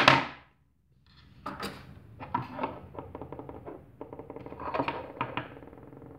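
Two folding knives handled together on a wooden table: the aluminium-handled Ganzo F758 and a small steel folder. A string of small clicks, taps and light scrapes as they are set side by side, from about a second in until near the end.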